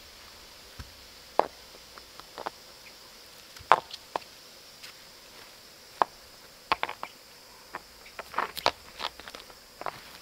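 Loose rocks clacking and scraping against one another as they are set by hand into a ring on dirt: irregular sharp knocks, scattered at first and coming several a second near the end. A steady high insect buzz runs underneath.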